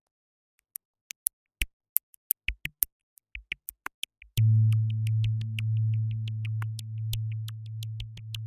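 Electronic background music: sparse short, high synth blips with silence between, joined about four seconds in by a held low synth bass note.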